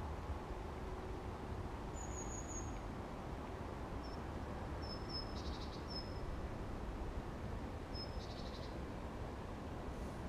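Small birds calling: thin, high, short whistled notes and a couple of brief rapid trills, spaced out every second or two, over a steady low background rumble.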